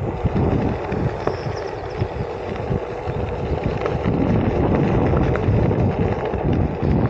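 Wind buffeting a helmet-mounted camera's microphone while riding, a fluctuating low rumbling rush, with a faint steady hum underneath.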